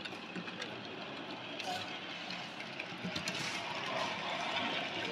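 00 gauge model locomotive, a BR Standard 9F 2-10-0, running along the layout's track: the electric motor whirring and the wheels rolling on the rails, getting louder about three seconds in as it comes close.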